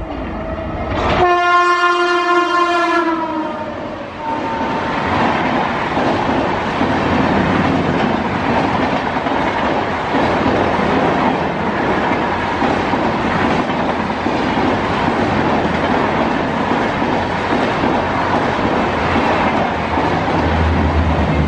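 An Indian Railways WAP-7 electric locomotive sounds its horn about a second in, one long blast that sags slightly in pitch at the end. Then its passenger coaches rush past at speed, a loud steady rush of wheels on rails with clickety-clack over the rail joints.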